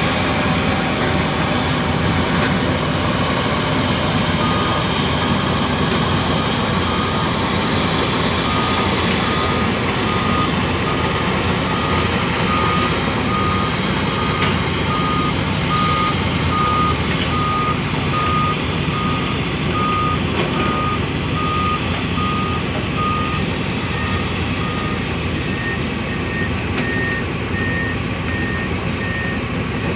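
Komatsu D65 bulldozer's diesel engine running steadily under load, with a reversing alarm beeping regularly from a few seconds in. Near the end a second, higher-pitched reversing beep takes over.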